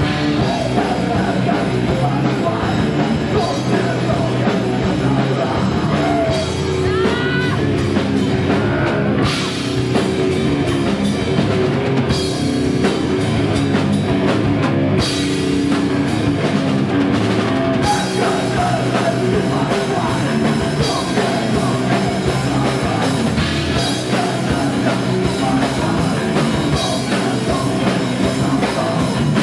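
Live heavy rock band playing loud and without a break: drum kit, electric guitar and a shouted lead vocal.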